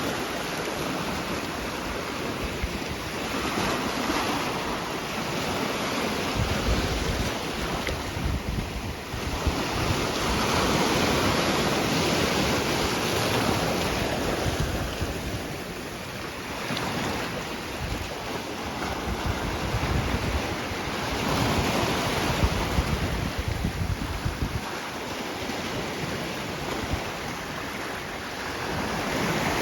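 Sea waves washing in on the shore, swelling and ebbing every few seconds, with wind buffeting the microphone.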